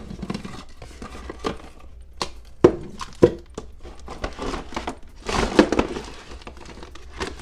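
Hard plastic toy pieces clicking and knocking against each other and the cardboard box as they are taken out, with a longer stretch of scraping and rustling about five seconds in as the large plastic base slides out of the box.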